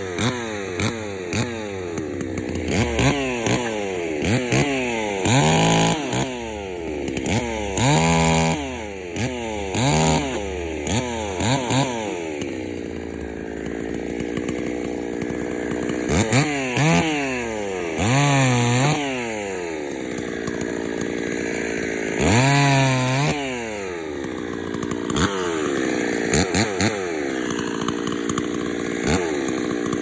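Stihl MS 260 Pro two-stroke chainsaw limbing a felled sweet gum. It is revved in repeated short bursts that rise and fall as it cuts, dropping back to idle between cuts, with longer idling spells in the middle and near the end.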